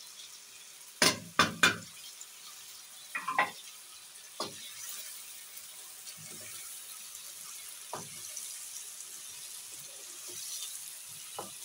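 Potato and tomato slices frying in a pan with a faint steady sizzle, while a wooden spoon stirs them and knocks against the pan. A cluster of sharp knocks comes about a second in, as spice is tipped in from a plate, with a few lighter knocks later.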